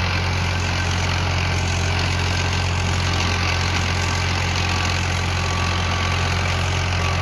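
Tractor's diesel engine running steadily with a low, even drone, driving a rear-mounted rotary tiller that churns the soil.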